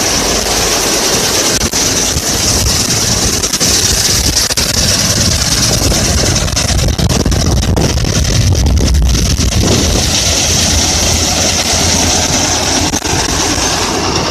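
Combine harvester running steadily, its engine rumbling low under a constant high hiss.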